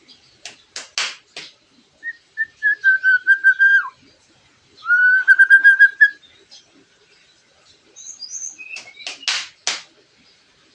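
White-rumped shama (murai batu) singing a song laced with mimicked lovebird calls: a burst of sharp chips, two long whistled phrases held near one pitch, the first dipping at its end, then a few high notes and another burst of sharp chips near the end.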